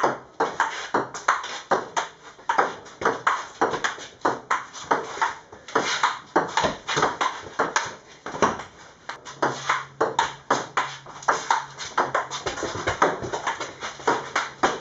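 Table tennis ball clicking off bats and table in a quick, continuous rally, several hits a second.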